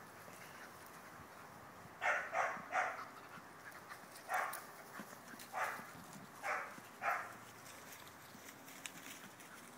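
Australian Labradoodle puppies yapping in play: seven short barks, a quick cluster of three about two seconds in, then single barks spaced about a second apart.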